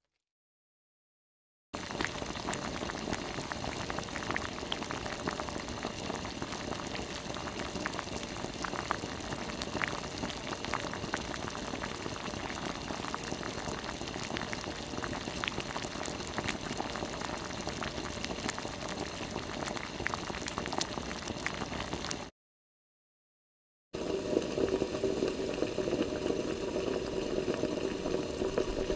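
Water sound effects: steady bubbling water with many small scattered pops, starting after a moment of silence and cutting off suddenly a little past twenty seconds in. After a second or two of silence a different, fuller steady water sound begins.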